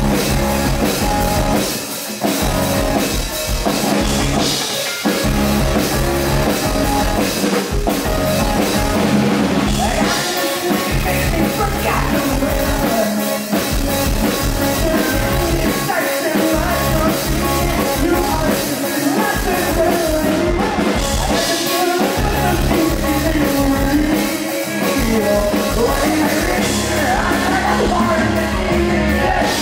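Live rock band playing with electric guitars, bass guitar and drum kit, a man singing the lead vocal.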